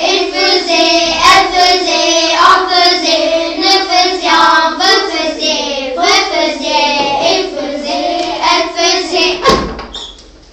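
Children's voices chanting French verb conjugations in a sing-song tune, syllable after syllable, stopping shortly before the end.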